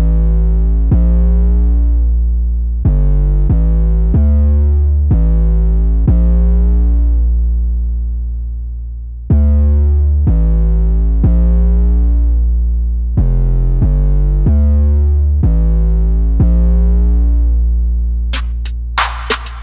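Background music: synthesizer keyboard chords over a deep bass, the chord changing about every second and fading between changes, with drum-machine hits coming in near the end.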